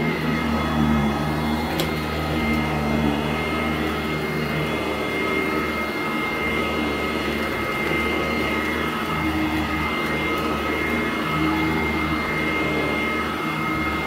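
Sanitaire SC886 commercial upright vacuum running over carpet: a steady motor hum with a constant high whine. A single sharp click comes about two seconds in.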